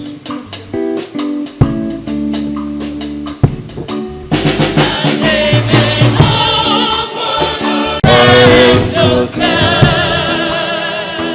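Church choir singing the congregation's response to an intercession, with instruments and a drum kit. About four seconds of instrumental playing come first, then the voices join in.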